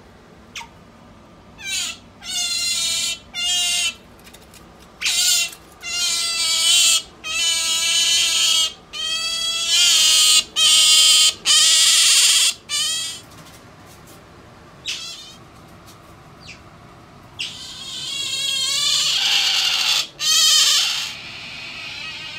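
Asian small-clawed otter squealing: about a dozen high-pitched, wavering calls, each under a second, come in quick succession, then a longer drawn-out squeal and one more short one near the end.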